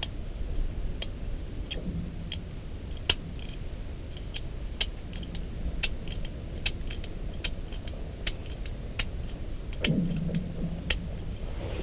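Fishing tackle being handled: scattered light clicks and small metallic clinks at irregular intervals over a low, steady rumble.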